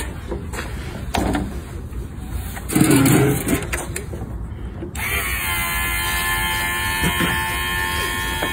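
A small electric fuel pump switches on abruptly about five seconds in and runs with a steady whine and hiss, pumping fuel into the RC plane's tank. Before it starts there are only faint handling sounds and a brief voice.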